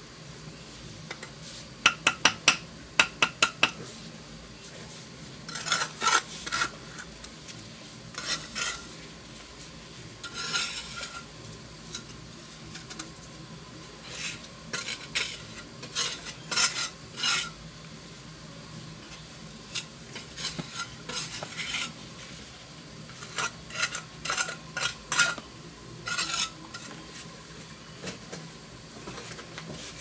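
Steel brick trowel working mortar on a brick wall: short scraping strokes come in clusters every few seconds. Near the start there is a quick run of sharp metallic taps of the trowel against brick.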